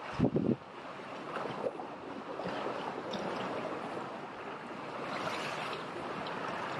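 Small sea waves lapping and washing against a rocky shore, a steady hiss of moving water. A brief low rumble comes just after the start.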